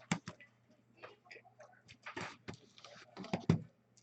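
Trading cards and their packaging being handled: scattered clicks and ticks with a couple of longer rustles.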